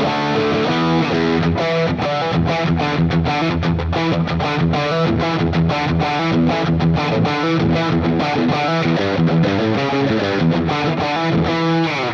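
Ibanez electric guitar played with distortion: a fast riff of rapidly picked notes, stopping abruptly at the end.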